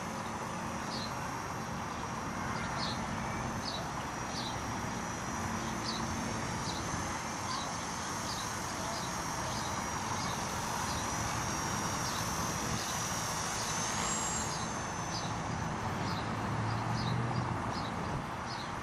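Wind buffeting the microphone, over the thin high whine of a Walkera 4#3B micro RC helicopter's brushless motor and rotor, which wavers in pitch and lifts briefly about two-thirds through. Short high chirps repeat roughly once a second.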